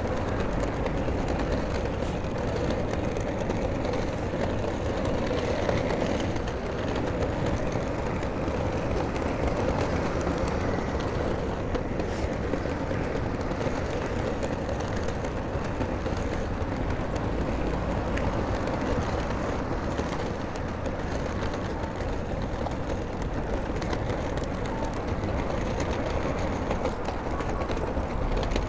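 Steady city street noise: a continuous low traffic rumble with no distinct events.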